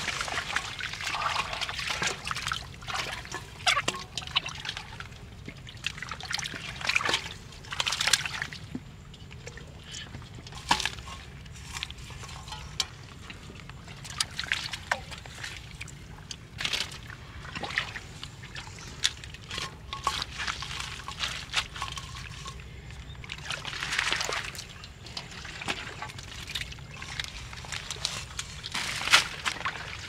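Shallow muddy water sloshing and splashing in short, irregular bursts as a steel bowl is scooped through it and lifted.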